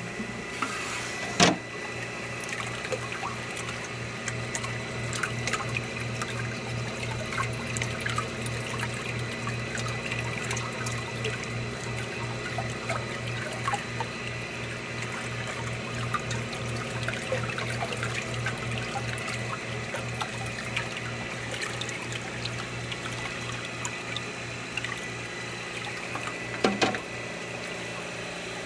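Technogel Mixtronic 60 pasteurizer running while it holds the mix at 5 °C after its pasteurizing cycle: a steady, pulsing machine hum with liquid churning. Two sharp clicks, one about a second and a half in and one near the end.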